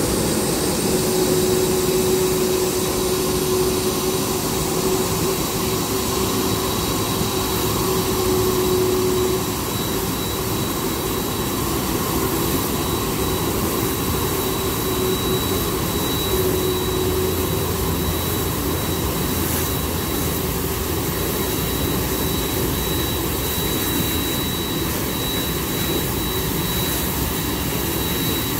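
Jet engines of a Boeing 747 freighter running close by: a steady loud rush with a thin high whine. A lower hum drops away about nine seconds in and the sound gets a little quieter.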